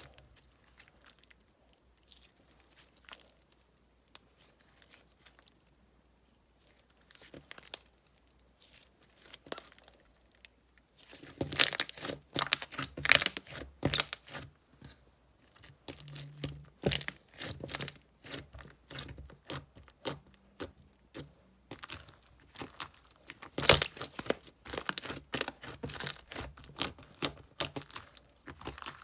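Slime being handled and squeezed by hand. For about the first ten seconds there are only a few faint clicks, then a dense run of sharp clicks, pops and crackles.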